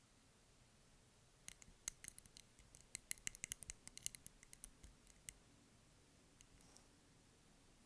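Quick, irregular tapping on a candle or its container: about two dozen small, sharp clicks packed into three or four seconds, followed a second later by a few faint ticks.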